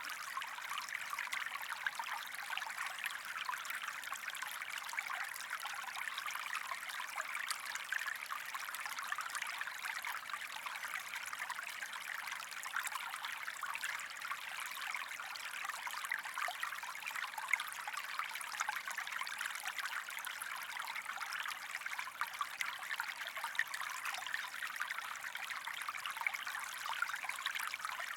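Creek water running and trickling over rocks, a steady babble of flowing water.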